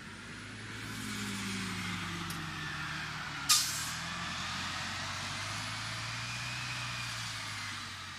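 Heavy truck engine running in street traffic, with a short sharp hiss of its air brakes about three and a half seconds in.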